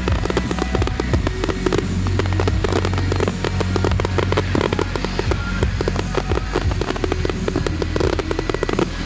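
Display fireworks bursting overhead in a dense barrage: a rapid, continuous string of bangs and crackles from many aerial shells and comets going off together.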